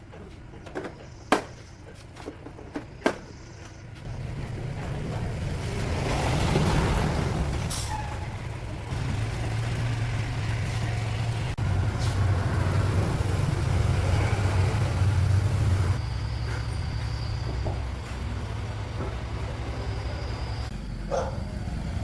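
A few sharp knocks, then an engine starts running with a steady low hum that grows louder, holds for several seconds, and eases off near the end.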